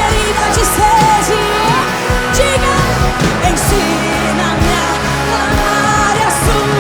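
Church worship band playing, with sustained chords and bass, a steady drum beat and singing voices over them.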